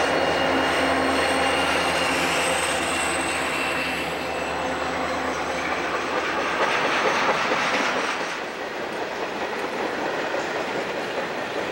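Santa Fe diesel freight train rolling past. A low locomotive engine drone fades out about six seconds in, leaving the rumble and clatter of container cars and boxcars on the rails. A thin, high wheel squeal sounds in the first few seconds.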